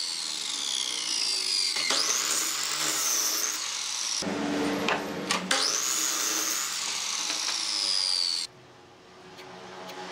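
Electric miter saw cutting wood. The motor whine winds down, spins back up to a high pitch and bites through a wooden block for about a second, then is started again and winds down with a falling whine. About eight and a half seconds in the sound drops away suddenly.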